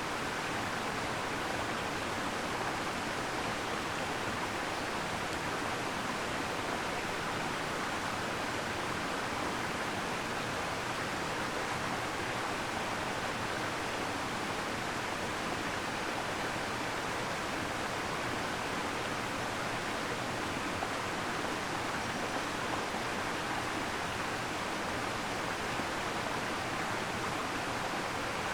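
A waterfall: a steady, unbroken rush of falling water.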